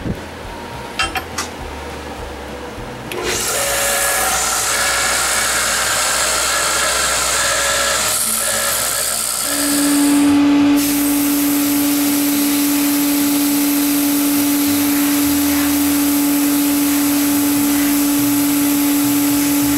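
A few light clicks, then from about three seconds in an abrasive blast cabinet's gun hisses steadily as it blasts a small steel bracket. About halfway through, a steady low hum joins the hiss.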